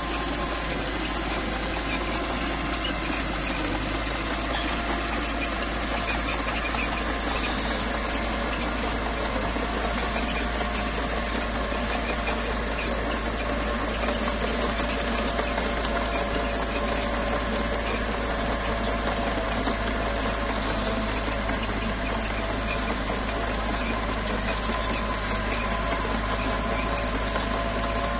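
Small bulldozer's engine running steadily under work, a continuous mechanical drone with a few steady whining tones.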